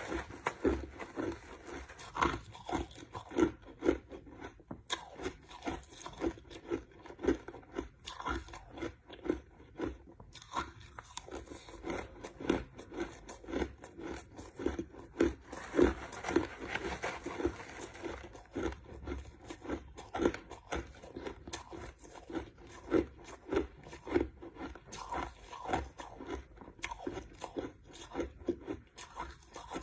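A person chewing crushed ice close to the microphone, with a steady run of crisp crunches at about two a second.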